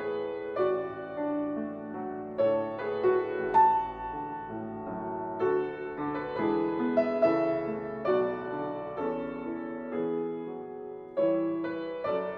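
Background music led by piano: slow, gentle melody and chord notes struck one after another and left to ring.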